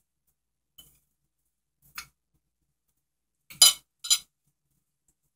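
Metal spoon clinking against a china plate while breadcrumbs are spooned over cheese sticks: a few light taps, then two sharper clinks about half a second apart.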